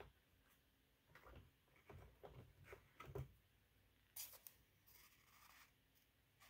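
Near silence, with faint taps, clicks and scrapes as chicken eggs are picked out of a plastic incubator and set on a candling light.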